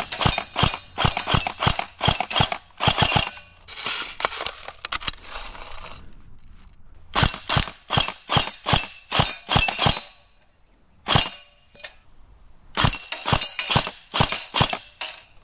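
Electric blowback airsoft FAL rifle on an 8.4-volt battery firing rapid strings of shots in three bursts, with a single shot between the second and third.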